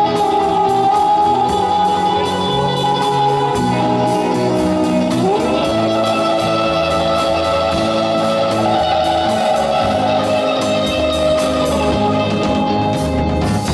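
Live rock and roll band playing, electric guitar to the fore over bass and drums, with a note sliding up about five seconds in.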